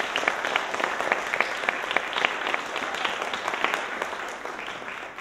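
Theatre audience applauding, the clapping slowly thinning and fading toward the end.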